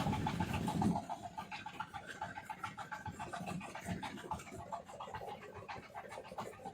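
Gill net being hauled aboard a small fishing boat: fast, continuous clicking and rattling of net and gear. A louder rumbling sound in the first second or so.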